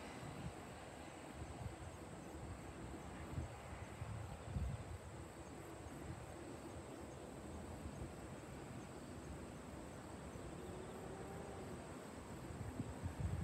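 Quiet outdoor trackside ambience: wind rumbling on the microphone in gusts, strongest near the end, over faint steady insect chirring.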